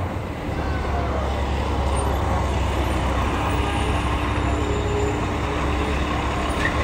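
City street traffic: a steady low rumble of vehicle engines over a continuous background of road noise, with a faint steady hum coming in about halfway through.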